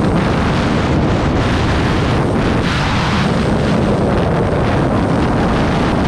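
A 2009 Aprilia Tuono's V-twin engine running while the bike is ridden, heard onboard under heavy wind rush on the microphone.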